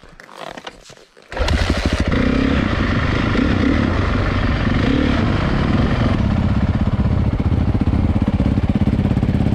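450 single-cylinder four-stroke dirt bike engine, heard from the rider's helmet camera. It comes in suddenly about a second in, runs hard under way, then eases to a steadier, lower run in the second half.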